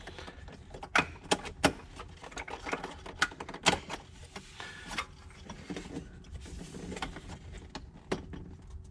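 Plastic PCV line being unclipped from its retaining channels on the engine: scattered plastic clicks and knocks with handling rustle, the sharpest about a second in and just before four seconds in.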